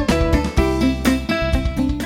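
Upbeat instrumental background music with plucked guitar-like notes and keyboard.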